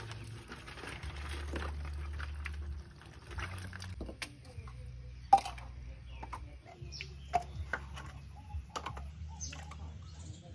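Hands moving plastic pipe sections in shallow water: light splashing and a scattering of sharp clicks and knocks, the loudest about five seconds in.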